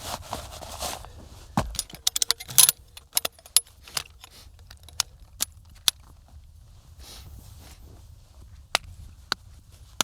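Light metal clicks and clinks of an ultralight folding camping chair's poles being fitted together, a quick run of them followed by a couple more near the end, with a rustle of fabric at the start.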